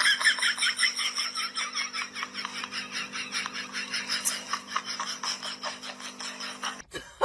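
Ostriches pecking rapidly at a plastic basin worn over a person's head, giving a fast, steady rattle of sharp taps, several a second. The taps stop just before the end.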